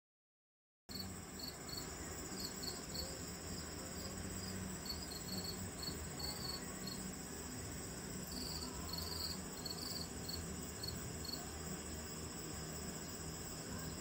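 Steady high-pitched insect chorus, with short chirps repeating irregularly above a continuous buzz, starting about a second in.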